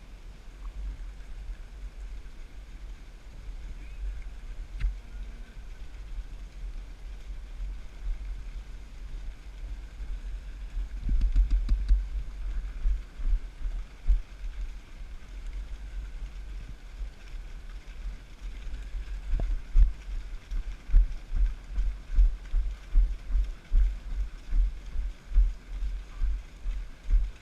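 Low wind and handling rumble on the microphone. In the last third it turns into regular bumps about two a second, the jostle of a camera carried on horseback.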